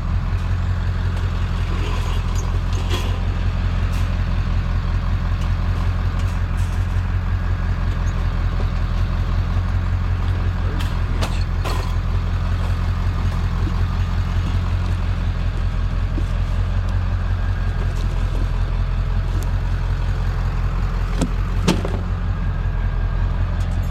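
Vehicle engine idling steadily, a low even hum, with a few sharp knocks and clinks, the loudest near the end.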